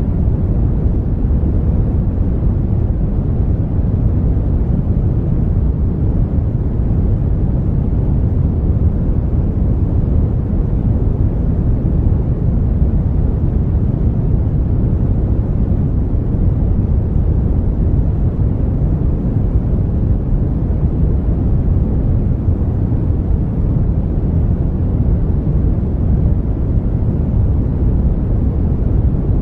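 Brown noise: a steady, even, deep rushing hiss with most of its weight low down and little treble, unchanging throughout.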